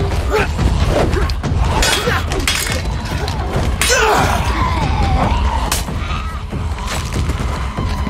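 Fight sound effects: a rapid series of sharp impacts and hits as blows are traded with a wooden staff, over a steady low rumble.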